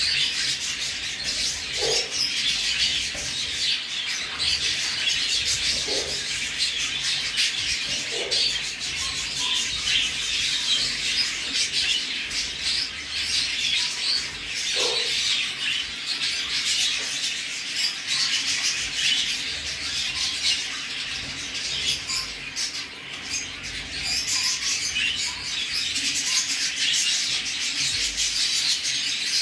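Newly hatched budgerigar chicks cheeping rapidly and continuously, high-pitched, as they beg while the parent feeds them.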